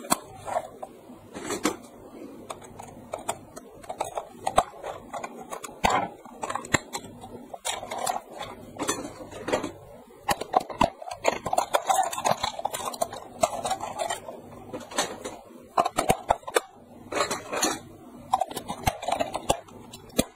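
Hard plastic clicking and clattering from handling a battery-operated clear-gear toy train: turning it over, removing the battery cover and pressing AA batteries into the spring contacts. The clicks come irregularly throughout.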